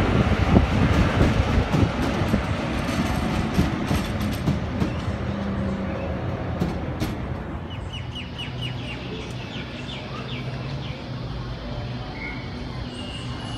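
A double-deck electric suburban train running past on the tracks, its wheels clicking over the rail joints as the rumble fades away. After it has gone, a bird chirps rapidly for a couple of seconds.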